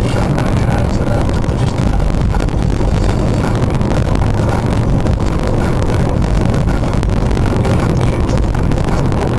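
Steady drone of engine and tyre noise inside a moving car on an expressway, heard through a dashcam microphone.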